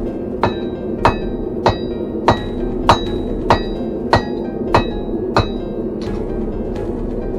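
Hand hammer striking hot steel on an anvil, about nine ringing blows roughly 0.6 s apart, then a couple of lighter taps in the last two seconds.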